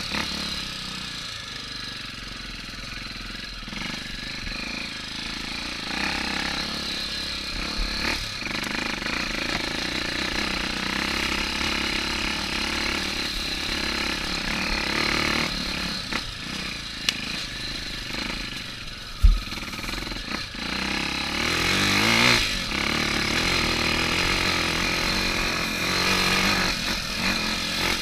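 Dirt bike with a Honda Tornado-based four-stroke single-cylinder engine running on a rough grassy trail, the pitch rising and falling with the throttle, with a clear rev-up near the end. A single sharp knock about two-thirds of the way through, the loudest moment, with a smaller click just before it.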